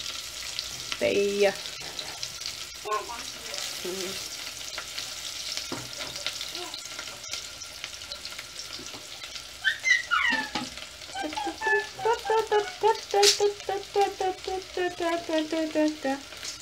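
Chopped onions sizzling in hot oil in an aluminium pot, stirred now and then with a wooden spoon. From about ten seconds in, a quick run of short, repeated high-pitched notes sounds over the sizzle and is the loudest thing.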